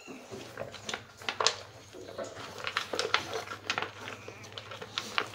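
A dog eating dry kibble from a metal pan: irregular crunching chews and clicks of kibble.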